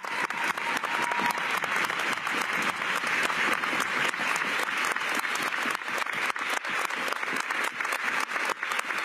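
Legislators applauding: many hands clapping in a steady, dense ovation that lasts the whole pause in the speech.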